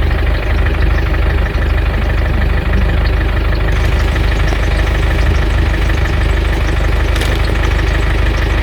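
Car engine running steadily, with a constant low rumble.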